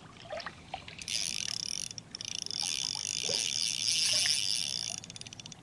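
Small ultralight fishing reel whirring steadily for about four seconds while a hooked fish is played, then a quick run of clicks near the end.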